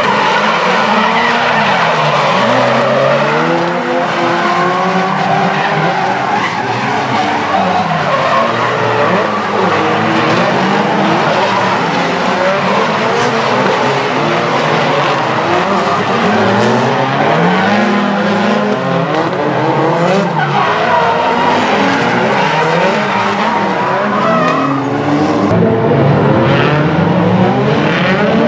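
Nissan S-chassis drift cars sliding in tandem. Their engines rev hard, the pitch swinging up and down again and again as the drivers work the throttle, and over them runs continuous tyre screech.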